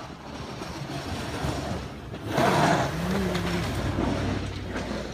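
A snowplow truck driving past, its engine rising to its loudest about two and a half seconds in and then holding a little lower.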